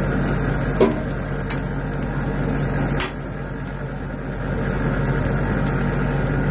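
Steady hum and hiss around a flame grill where burger patties are cooking, with three sharp clicks of utensils about one, one and a half and three seconds in. The hum drops a little after the third click and comes back up.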